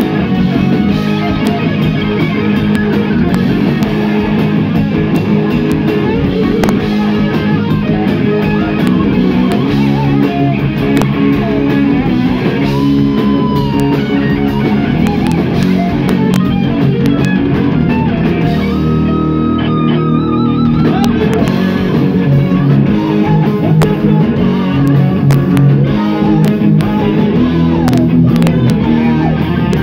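Live rock band playing loudly: electric guitar lead lines over drums. Near the middle, a single held, wavering guitar note stands out while the band thins out briefly.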